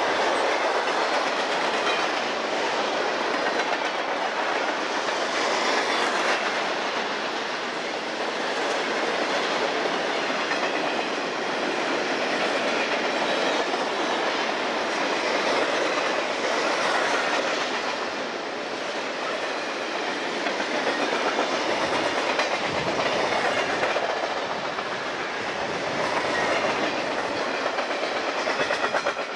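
Freight train passing close by: a long string of boxcars and tank cars rolling steadily along the track, the wheels running over the rails in a continuous loud noise that swells and eases slightly.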